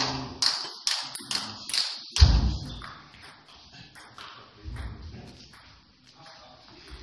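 Table-tennis ball clicks: a quick run of sharp ticks about two a second for the first two seconds, then scattered clicks of ball on table and bat. A heavy thud just after two seconds is the loudest sound, with a softer thud near five seconds.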